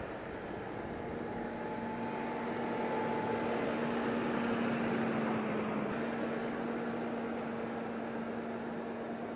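Diesel tractor engine running steadily under load, its hum swelling to its loudest about halfway through and then easing off a little.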